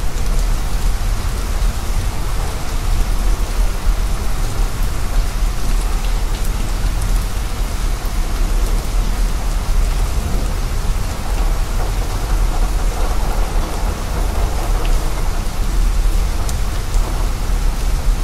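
Steady, dense noise like heavy rain, with a deep low rumble underneath and a few faint ticks.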